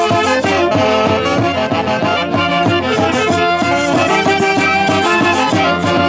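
A section of saxophones playing a Santiago tune together, over the steady beat of a small drum struck with a stick.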